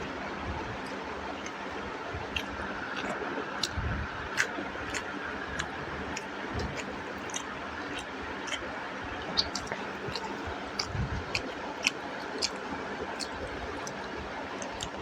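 Close-up eating sounds: irregular wet clicks and smacks of a mouth chewing chicken and rice in curry gravy, over a steady low hiss.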